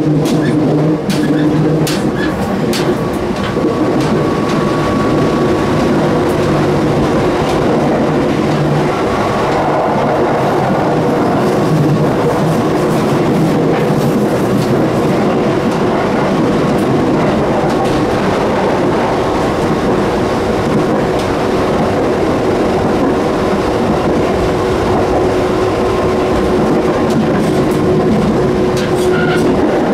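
JR 213 series electric train running, heard from the gangway between two cars: a steady rumble of wheels on rail with a steady hum, and sharp clicks and rattles, most of them in the first few seconds and again near the end.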